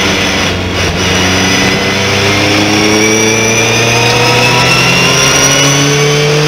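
Race pickup truck's engine heard from inside the cabin, accelerating hard on track. After a brief lift, it comes back on about a second in, and its pitch then climbs steadily as it pulls through the gear.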